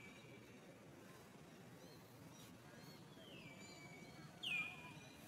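A high-pitched animal call near the end: a short rise of sound that slides down in pitch and levels off into a held note for about a second. The tail of a similar call is heard right at the start; otherwise it is nearly quiet.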